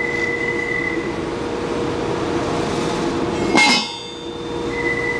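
Steady machine hum with a low drone. About three and a half seconds in comes a single sharp metallic clink with a short ring as the sand-cast brass part is knocked against the workbench while it is turned over.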